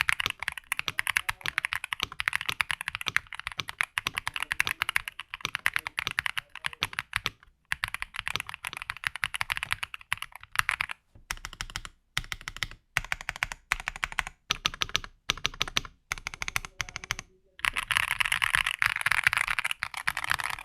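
Mechanical keyboard with Aflion Iceberg linear switches being typed on quickly: a dense run of clean, clacky keystrokes broken by a few short pauses, growing faster and denser near the end.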